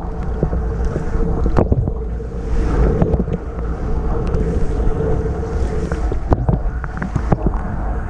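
Portable dishwasher running, heard from inside the tub: the wash pump hums steadily under a rush of spraying water, with irregular sharp taps as spray hits the camera.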